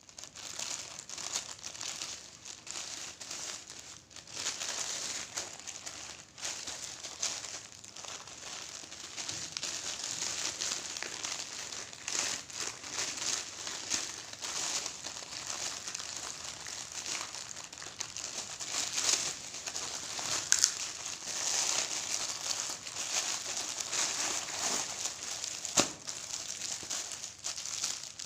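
Parcel packaging crinkling and rustling continuously as it is handled and opened by hand, with a few sharper clicks and crackles.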